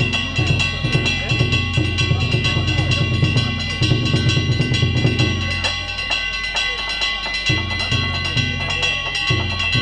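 Danjiri festival music: a large drum beaten in fast strokes under small hand gongs ringing steadily. The drumming stops for about two seconds past the middle, then comes back in single strokes.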